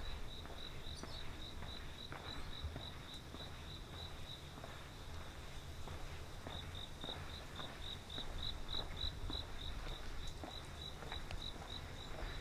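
A cricket chirping in a steady high-pitched pulse, about five chirps a second, breaking off for about two seconds partway through and then carrying on.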